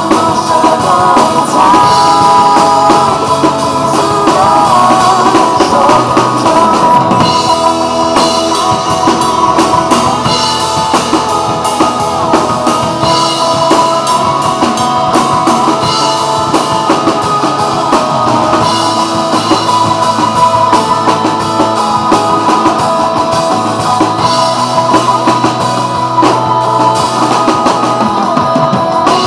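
Drum kit played live along to a recorded pop song backing track, drums and cymbals over sustained instrumental parts.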